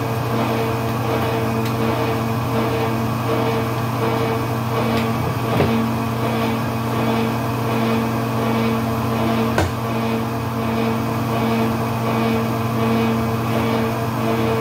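Collins electric pipe threading machine running steadily with a constant motor hum as it threads rigid conduit, with two sharp metallic knocks about five and a half and nine and a half seconds in.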